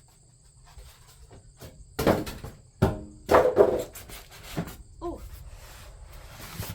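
A few sharp knocks and scrapes from packed smoker parts being handled in their box, the loudest about three and a half seconds in. A short squeak follows near five seconds.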